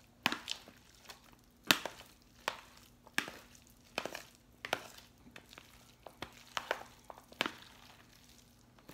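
Metal spoon clacking and scraping against the sides of a plastic bowl while stirring thick potato salad: irregular knocks about once or twice a second, the loudest about two seconds in.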